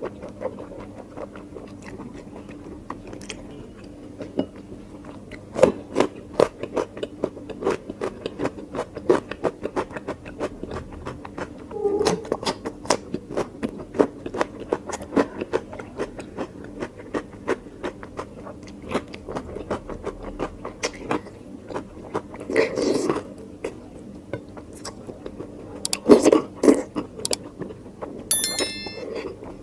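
A person chewing food close to the microphone, with many irregular wet mouth clicks and smacks, and a few louder mouthfuls near the end.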